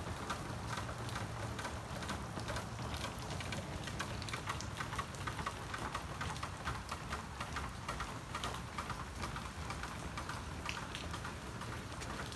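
Steady rain falling on standing water and wet grass, with many small drop splashes.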